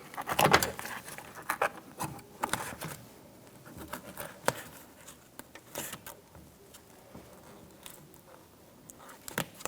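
Plastic waterproof membrane being peeled off a car door's inner frame, its sticky adhesive letting go with irregular crackles and the rustle of crinkling plastic. The crackling is busiest in the first few seconds.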